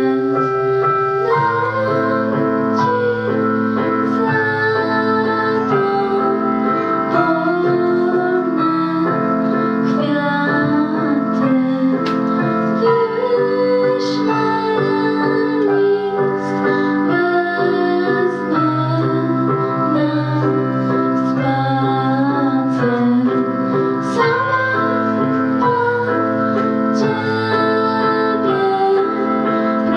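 A girl's voice singing a song over keyboard accompaniment, with held notes and a steady bass line.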